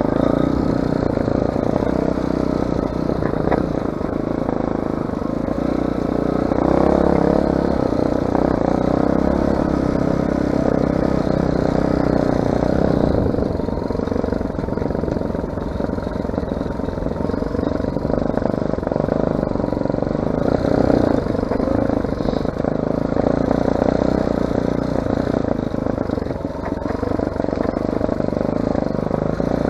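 Off-road vehicle engine running steadily while riding a trail, with rattling and clatter over the rough ground.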